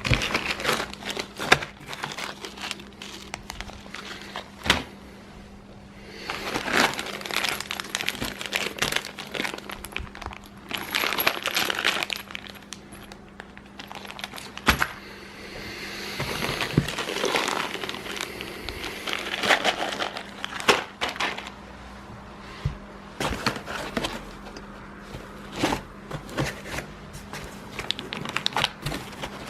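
Plastic packaging crinkling and rustling in stretches of several seconds, with scattered clicks and knocks as 3D printer kit parts are handled and set down. A steady low hum runs underneath.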